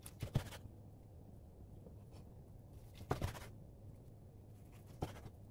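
Kitchen knife slicing through a rolled egg omelette and knocking on a wooden cutting board, three short knocks: near the start, about three seconds in, and near the end.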